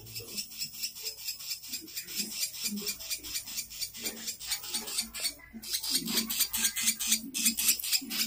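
Background music: a steady shaker-like beat, about four strokes a second, after the melody drops out.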